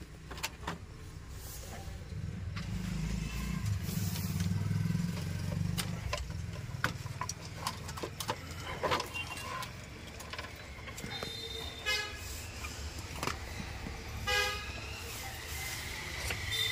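Scattered clicks and knocks of a CRT TV circuit board being handled and turned over on a workbench, with the low rumble of a passing vehicle a few seconds in and two short vehicle horn toots near the end.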